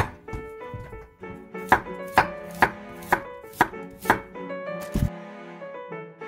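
Chef's knife slicing a carrot into rounds on a wooden cutting board: six sharp strokes about two a second, then a duller knock near the end. Background music plays throughout.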